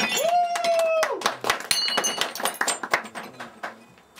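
Ceramic plate smashed on a wooden plank floor, its shards clattering and skittering with sharp high pings that thin out after about three seconds.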